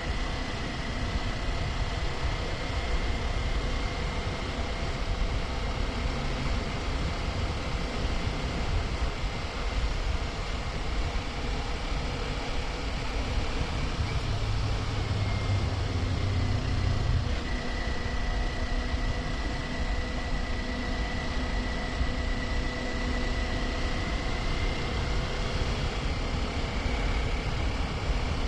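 Kawasaki Ninja 400 parallel-twin engine running at a steady cruise, mixed with wind and road noise. A deeper low rumble swells for about three seconds around the middle.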